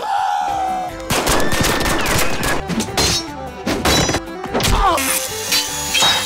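Cartoon sound effects over a music score: a rapid run of bangs and crashes.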